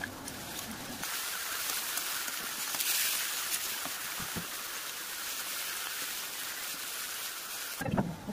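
Vegetables sizzling as they stir-fry in a wok, a steady hiss with a faint tick or two from the spatula. It ends in a short low-pitched sound.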